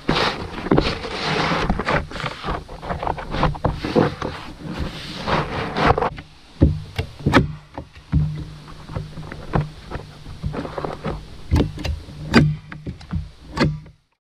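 A roll of black roofing material being unrolled and dragged across a plywood roof deck, a rustling scrape for the first several seconds, followed by a run of sharp clicks and knocks as it is pressed down and worked flat with a hand tool.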